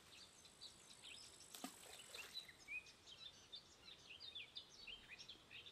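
Faint birds chirping and twittering all through, with one short falling sweep about one and a half seconds in.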